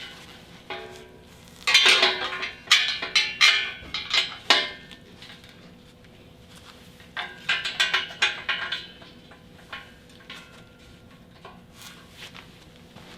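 Metal parts of a brake stand clanking and rattling together as they are handled and fitted, in two spells of ringing clatter: one about two seconds in and another about seven seconds in.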